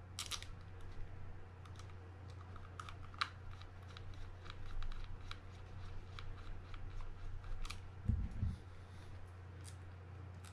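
Scattered small clicks and taps of fishing reel parts being handled and fitted during reassembly of a Daiwa Sealine 300H, over a steady low hum, with a couple of soft low thumps about eight seconds in.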